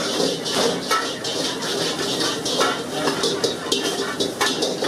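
Metal spatula clinking and scraping against a cooking pan in irregular strokes, two or three a second, as paneer masala is stirred.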